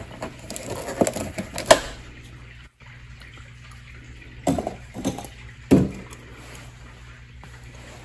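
Water sloshing and gurgling in a glass jar of freshly mixed baking soda and water, with a few short splashes about halfway through.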